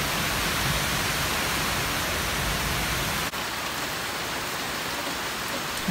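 Steady rain falling, an even hiss with a brief drop about three seconds in.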